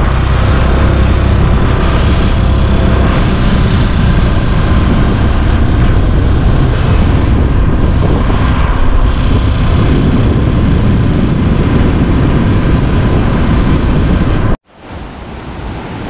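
Loud, steady rush of a swollen, fast-flowing flooded river, heavy with wind buffeting the microphone. It cuts off abruptly near the end, then a quieter rush rises again.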